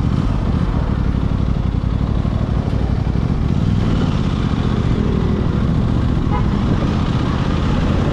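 Aprilia RS 660's parallel-twin engine running at a steady, even pace while riding, with no clear revs up or down.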